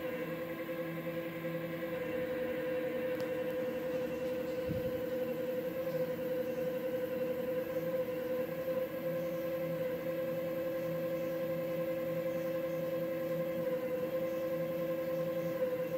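Stepper motors of a CNC hot-wire foam cutter whining steadily as they drive the wire carriages, several steady tones held together, with some of the lower tones dropping out for a few seconds and coming back as the moves change.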